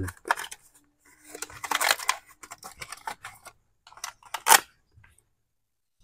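Small clicks and rustling of hands handling a motorcycle headlight bulb, its socket and a small plastic packet, with a louder click and rustle about four and a half seconds in.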